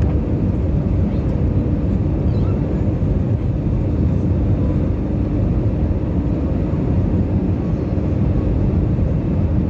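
Steady cabin noise of an Airbus A320 in descent on approach: a constant low rumble of the engines and airflow, with a faint steady hum running through it.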